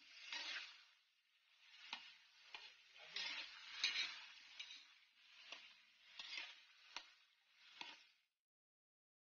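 Slotted spatula stirring and scraping diced carrots and potatoes frying in oil in a pan, with repeated scrapes and clicks against the pan over a light sizzle. It cuts off suddenly about eight seconds in.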